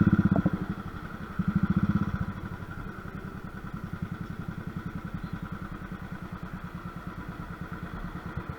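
Royal Enfield motorcycle engine with a steady thump. It comes off the throttle, gets one brief blip about a second and a half in, then settles to a lower idle that fades near the end.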